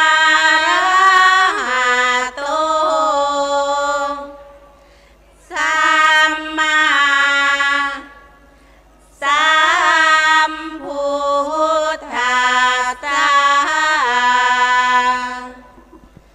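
A woman singing a Thai Buddhist sarabhanya chant unaccompanied, in three long drawn-out phrases with wavering held notes and short pauses between them.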